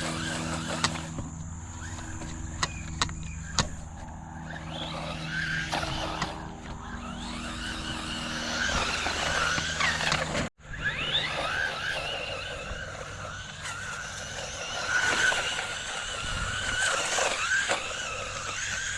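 Electric motor of a DEERC 001E 1:14-scale brushless RC truck whining as it drives through tall grass, the pitch rising and falling with the throttle. A few sharp clicks come in the first few seconds, and the sound breaks off briefly about ten seconds in.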